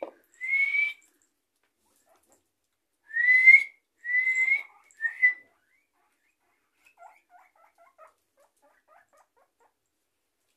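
Guinea pigs wheeking, the whistling call they make when begging for food: four short squeals that rise in pitch, the first just after the start and the other three in quick succession a few seconds in. Faint light ticking follows.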